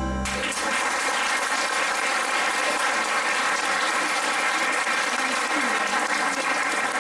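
Audience applauding steadily, starting just as a piece of school-band music breaks off at the very start.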